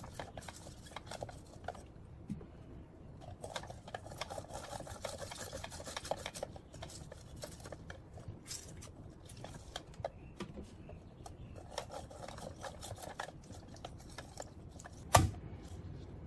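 Lime halves twisted and ground against a plastic hand citrus reamer: spells of rasping rubs and light clicks. One sharp knock near the end.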